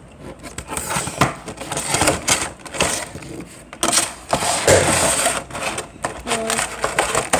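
Clear plastic toy packaging being handled and pulled apart: a run of clicks and crackles, densest about four to five seconds in.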